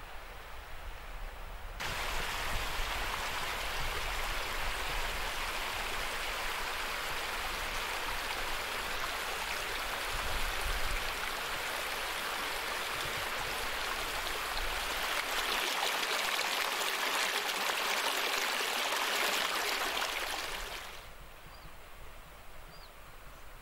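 Shallow mountain stream running over rocks, a steady rushing of water. It cuts in suddenly about two seconds in and cuts off suddenly a few seconds before the end, leaving a faint steady hiss.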